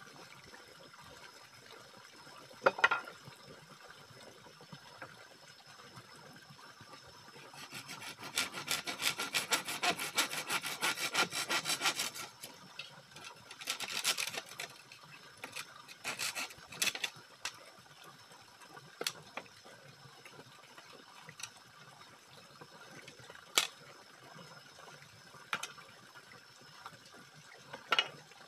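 A blade cutting into bamboo: a quick, even run of rasping sawing strokes for about four seconds near the middle, then a shorter burst. Scattered sharp knocks and taps on the bamboo come before and after.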